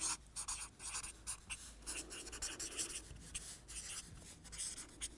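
Marker pen writing on a sheet of paper: a quick run of short strokes as a line of words is written out.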